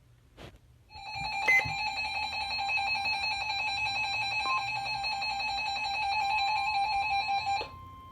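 Emergency Alert System attention signal: a harsh, steady electronic two-tone alarm with a fast buzzy pulse. It starts about a second in and cuts off suddenly near the end.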